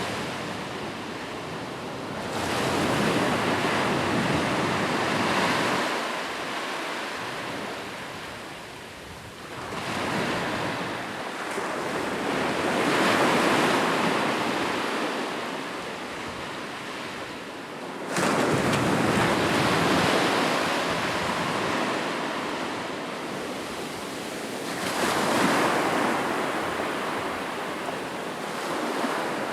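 Ocean surf breaking and washing on a shore: a continuous rushing wash that swells with each incoming wave every several seconds and ebbs between them.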